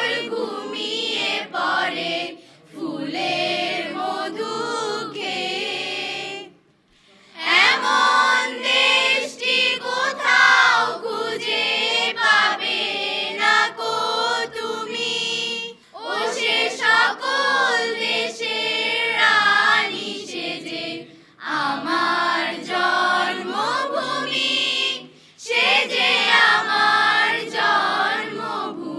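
Mixed choir of teenage girls and boys singing a Bengali patriotic song unaccompanied, in sung phrases with short breaks between them and one clear pause about seven seconds in.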